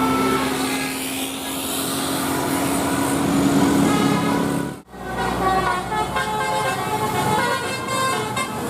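Indonesian 'telolet' bus horns toot short multi-note tunes over the bus engines and road noise. The sound breaks off sharply about five seconds in, and another bus's telolet horn starts up.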